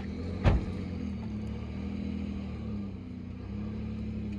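Pickup truck engine running steadily under load as it pulls on a kinetic recovery rope to tip a car onto its side, with one loud thump about half a second in.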